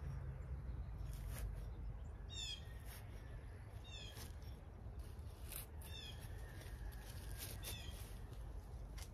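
A bird calling over and over, a short quick run of falling high notes about every two seconds. Under it, a garden fork works into soil and dry leaf mulch with scattered crunches and scrapes, over a low steady rumble.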